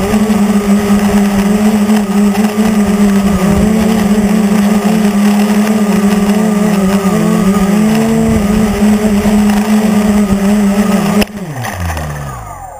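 A quadcopter on a Typhoon frame, heard from its onboard camera: its electric motors and propellers give a steady high drone as it descends. About 11 s in the motors cut after touchdown, and the drone falls sharply in pitch as the propellers spin down and fade out.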